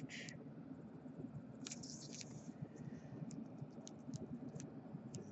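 Faint clicks and scratches of fingers handling a trading card in a clear plastic sleeve and holder, with a brief crinkly rustle about two seconds in.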